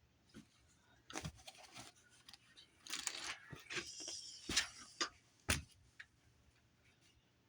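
Small plastic bags of diamond-painting drills being handled and sorted: crinkling and rustling plastic, with a few sharp taps, two of them loud in the middle.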